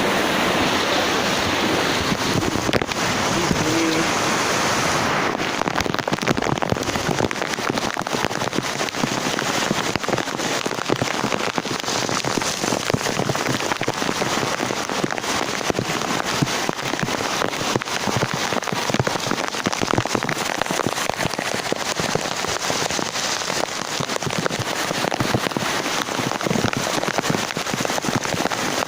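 Heavy rain falling steadily, a dense patter of drops striking surfaces. For the first few seconds it is a smoother, rushing hiss.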